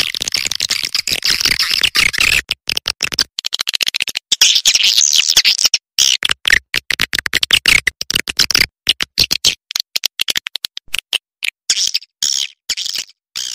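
Recorded swiftlet calls played as a lure: rapid, rattling clicks and chirring twitters in quick runs, broken by short gaps and breaking up near the end.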